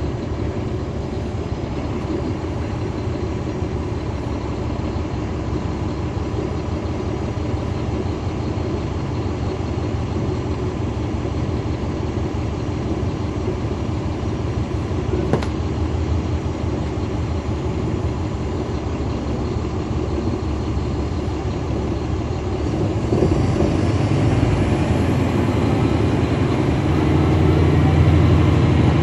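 Heard from inside the cabin of a NABI 40-SFW transit bus: its Caterpillar C13 ACERT diesel engine running steadily, with a single click about halfway through. About two-thirds of the way in the engine pulls harder and grows louder, its deep rumble strongest near the end.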